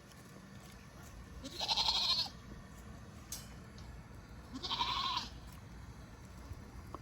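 A goat bleating twice: two quavering calls about three seconds apart.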